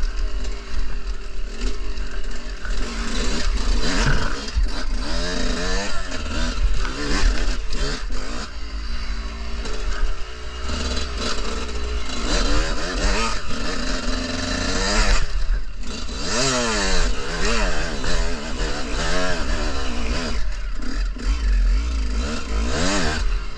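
Dirt bike engine revving up and down repeatedly as it is ridden, the pitch climbing and dropping many times, with a steady low rumble underneath.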